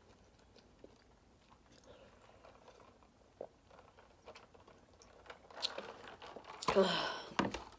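Close-up swallowing sounds as sips are drunk from a plastic cup, faint at first. Near the end comes a short voiced mouth sound, then a couple of sharp knocks as the cup is lowered.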